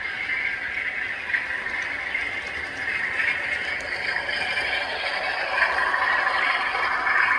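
Model railway train running, its wheels rattling and clattering along the track in a steady noise that grows louder in the second half.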